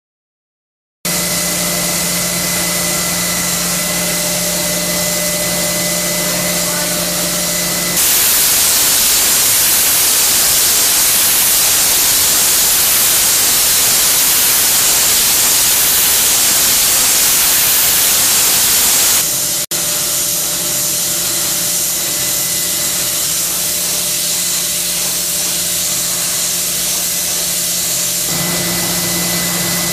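Automatic vertical glass sandblasting machine running with a steady hum and a high whine. About a quarter of the way in, the blast jets turn on: a loud, even hiss of air and abrasive. It stops about two-thirds through, with a brief gap, and the machine goes on humming.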